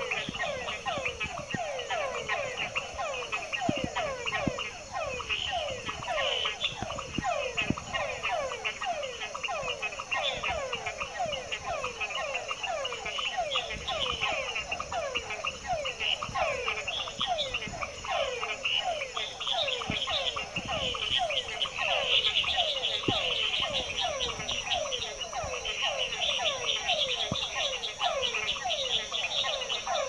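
A dense night chorus of frogs, many short falling calls overlapping one another with no break. A steady high whine sits behind the chorus and grows louder near the end.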